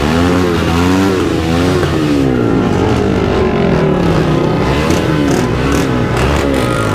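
MotorStar Explore 250 v2 motorcycle on its stock exhaust being revved over and over. The engine pitch rises and falls in repeated blips about once a second.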